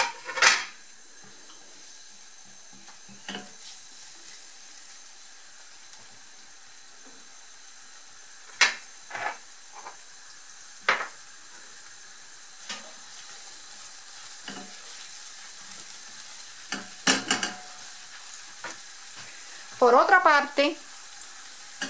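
Chopped onion and ají cachucha peppers sizzling steadily in olive oil in a nonstick frying pan, with a utensil scraping and stirring them in short strokes now and then.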